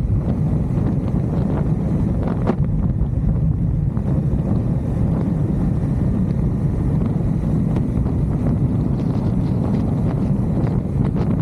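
Wind rushing over the microphone of a moving motorcycle, with the engine running steadily underneath.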